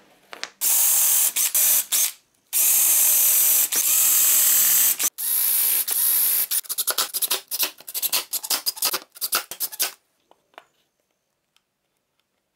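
Cordless drill-driver boring into a wooden board: long whirring runs with a steady motor whine, then many short stop-start trigger bursts for the last few seconds before it stops.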